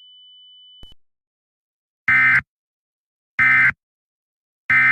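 Emergency Alert System end-of-message tones: three identical short bursts of warbling digital data, about a second and a half apart, closing the alert. A faint steady high tone dies away in the first second.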